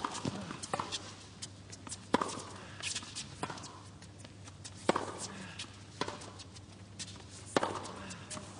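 Tennis ball struck back and forth with rackets in a rally, a sharp pock roughly every second and a half, with fainter bounces and taps between the hits.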